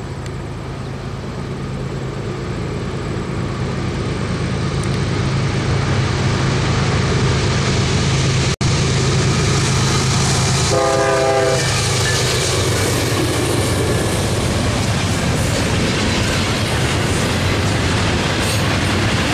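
A Norfolk Southern intermodal train led by GE ES40DC and C44-9W diesel locomotives approaches and passes at speed. The engine sound grows louder over the first six seconds, a short horn note sounds about eleven seconds in, and then comes the steady rolling rumble and wheel clatter of double-stack container cars.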